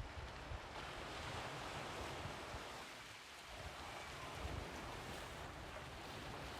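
Sea waves washing onto the shore: a steady rushing that eases about halfway through and swells again, with low gusts of wind on the microphone.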